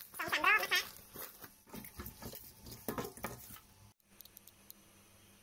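Raw octopus being scrubbed with salt in a stainless steel sink: irregular wet squelching and scraping. It opens with a short wavering vocal sound, and it stops at a cut near four seconds, leaving only faint ticks.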